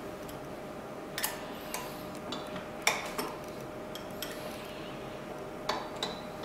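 Hex key clicking and clinking against the steel frame of a manual single-punch tablet press while the screw on its tablet-thickness adjustment is loosened: a few scattered, separate metallic clicks over a faint steady hum.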